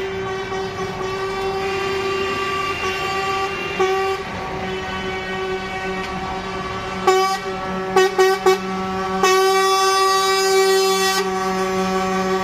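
Truck air horns sounding almost without pause as a convoy of lorries drives past, a held, multi-toned horn chord. Several short toots come about seven to eight and a half seconds in, then a louder long blast.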